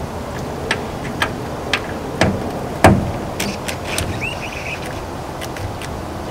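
Scattered clicks and a single knock, with no motor whir, from a cordless drill pressed against a tail-light screw: the drill's battery is dead, so it does not spin. A steady background hiss runs underneath.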